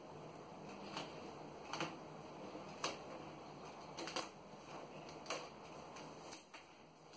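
Faint, irregular crinkles and light taps of self-adhesive contact paper being folded over the edge of a cabinet door and pressed down by hand, a handful of short sounds about a second apart.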